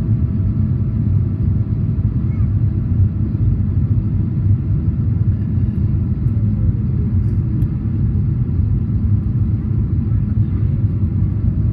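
Boeing 777-300ER cabin noise heard from a window seat during the descent to landing, with the flaps extended. It is a steady low rumble of airflow and engine drone, with a faint steady tone above it.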